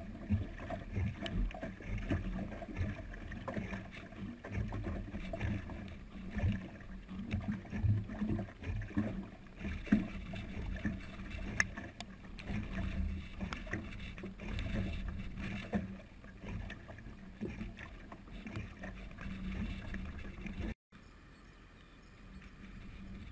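Wind buffeting a GoPro's microphone on a landed cargo bundle, an uneven low rumble that rises and falls with the gusts. Near the end the sound cuts off abruptly and gives way to a quieter, steadier hiss.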